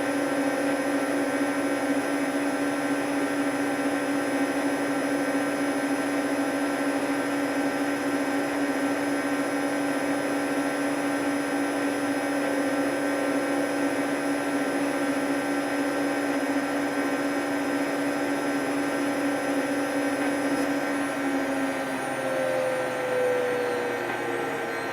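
Hoover 10 kg washing machine spinning at high speed on its 1400 rpm spin, a steady whining hum of motor and drum. Near the end the pitch starts to fall as the drum slows.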